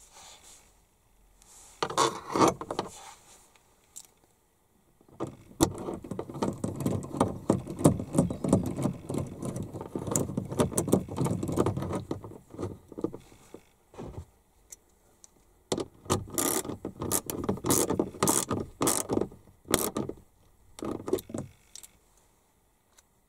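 Clattering, rattling and rapid clicking of tools and parts being handled during repair work on a car door. A short burst comes about two seconds in, then two long bouts begin about five and sixteen seconds in.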